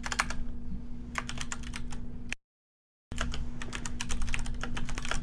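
Rapid keyboard typing: quick runs of clicking keystrokes in two bursts, broken by a short silent pause about two and a half seconds in, with a steady low hum under the clicks.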